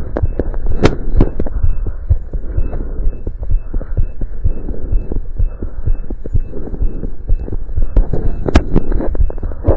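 Heart sounds heard through a stethoscope during exercise: a fast, regular run of low thumping beats. A few sharp scraping clicks come about a second in and again near the end.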